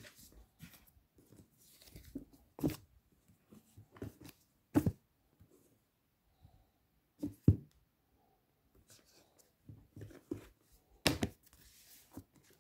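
Books and paper being handled close to the microphone: faint paper rustling with several soft knocks at irregular intervals as the books are moved.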